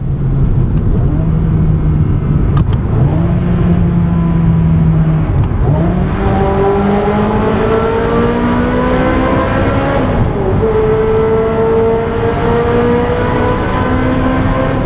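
Ferrari 360 Spider's V8 with a Tubi exhaust accelerating hard through the gears of its six-speed manual, heard from the open cockpit. The engine note climbs in long rising sweeps and drops back at each upshift.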